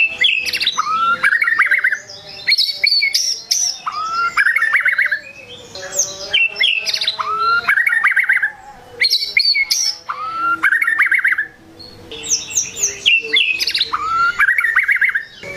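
White-rumped shama singing loudly: repeated phrases of upsweeping whistles running into a quick trill, about one phrase every two to three seconds, with high sharp notes between them.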